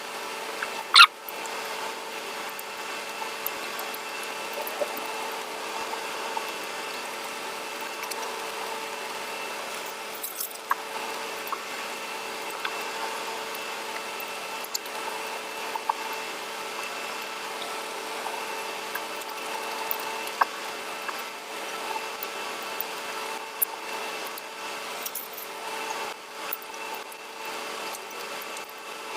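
Eating sounds: scattered soft clicks and smacks of chewing and handling food, over a steady mechanical hum with a few fixed pitches.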